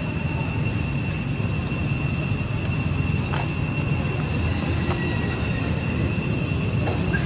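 Steady, unbroken high-pitched drone of insects shrilling in chorus, over a steady low rumble.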